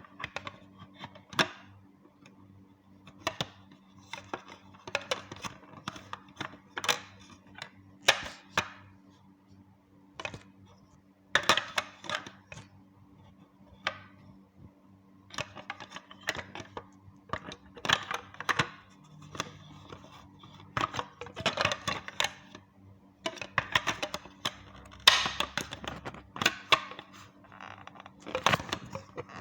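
Irregular plastic clicks, knocks and rattles as the detergent dispenser insert of a Toshiba washing machine is pried out and handled, over a faint steady low hum.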